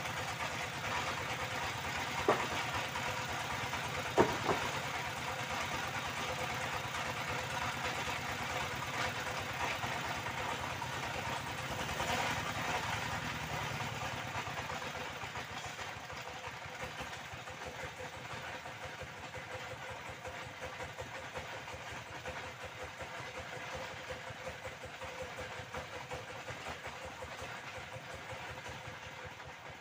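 Disc saw running and cutting old nailed timber, a steady whining drone. There are two sharp cracks a few seconds in, typical of the blade's teeth striking nails, and the sound slowly eases off toward the end.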